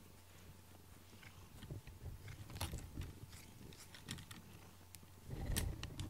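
Domestic cat purring close to the microphone, with irregular wet clicks and smacks of licking and nibbling at a person's arm. It gets louder about five seconds in.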